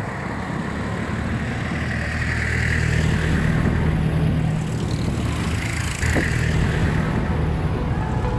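Road traffic passing close by: a steady rushing noise with a low engine hum, growing slightly louder over the seconds.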